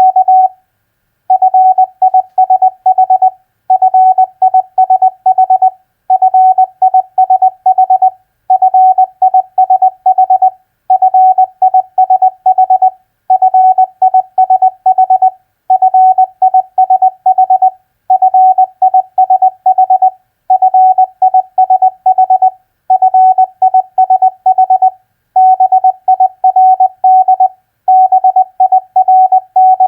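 Morse code sent as a single steady beep tone, keyed on and off at 20 words per minute. It spells out common four-letter practice words, each word sent twice, in clusters of dots and dashes with a short pause between words.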